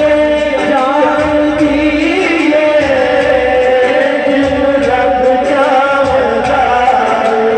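A man singing a naat, Urdu devotional verse in praise of the Prophet, into a microphone, his voice amplified. He holds long notes that bend and glide from one pitch to the next.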